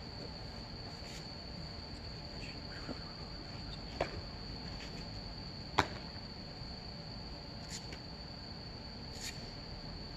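Crickets trilling steadily at a high pitch, with a few sharp knocks over it, a louder one about four seconds in and the loudest about six seconds in.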